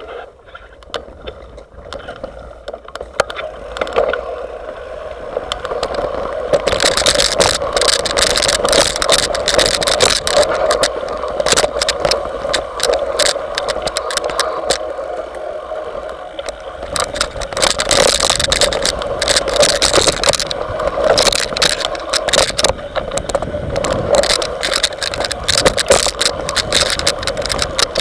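Mountain bike rolling fast down a rough dirt trail, heard from a camera mounted on its handlebar: tyre noise on the dirt with constant rattling and knocking from the bike and mount. It gets louder about six seconds in and again near the middle.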